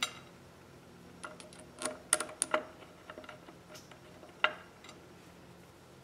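Small metal screws and carburetor parts being handled and set on a steel workbench: a quick run of light metallic clicks and clinks about a second in, then one sharper click a little after the middle.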